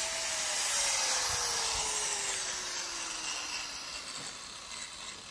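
A power tool's motor spinning down: a high hiss with a whine that slides steadily down in pitch and fades over about four seconds.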